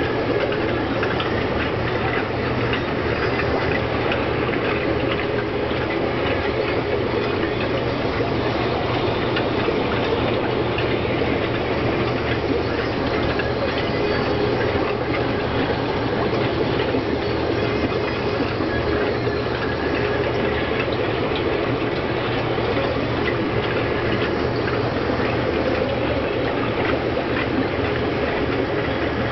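Aquarium equipment running steadily: a constant mechanical hum from air pumps and filters, mixed with a continuous rushing of water.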